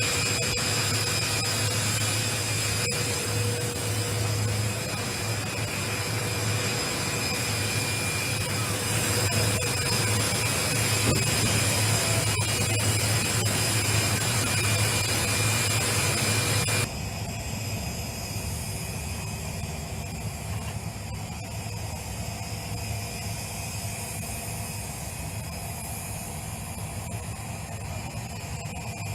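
Jet aircraft engines running steadily on an airfield apron: a loud, even hum with a high whine over it. About two-thirds of the way through it drops abruptly to a quieter, duller version of the same steady engine noise.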